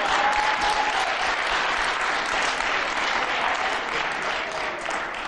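Studio audience applauding, loudest at first and easing off towards the end.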